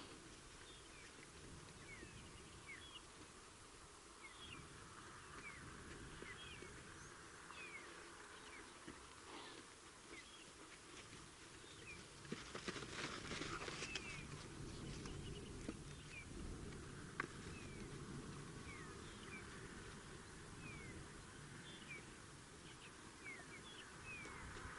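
Faint wild animal calls: short high chirps scattered throughout, with a burst of rapid, pulsed calling about halfway through.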